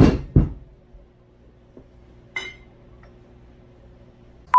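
A ceramic Rae Dunn cookie jar is dropped and lands with a big bang. A second knock follows about half a second later. The jar survives unbroken, and a small clink comes about two and a half seconds in.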